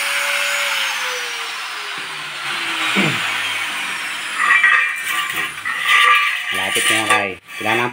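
Angle grinder running free off the cut on galvanized square tube, then its whine falling slowly in pitch as the disc spins down after the trigger is let go. After that come clatters of the metal tubes being shifted on the tile floor.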